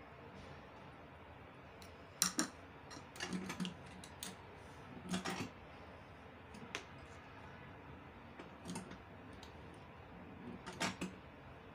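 Sewing machine presser foot being changed: scattered small clicks and clacks of metal parts as the standard foot is taken off the presser bar and a zipper foot is fitted in its place.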